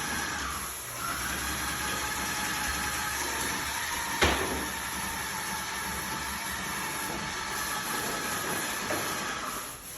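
Steady machine hiss over a low hum, with one sharp click a little over four seconds in.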